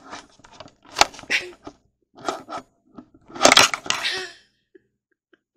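Handling noise close to the microphone as the camera is gripped and repositioned by hand: a sharp knock about a second in, short scrapes and rustles, and a louder, longer rustle-and-scrape about three and a half seconds in.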